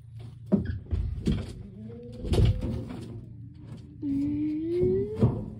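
Knocks and clatter of a small-animal glass tank and its lid being handled, several sharp knocks in the first half. Near the end comes a drawn-out call that rises in pitch over about a second.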